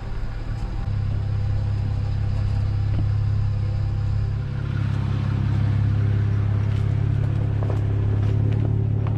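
Jeep Wrangler JL driving slowly on a rough dirt road, with a steady low drone from the engine and drivetrain. A few sharp knocks come about three seconds in and twice near the end.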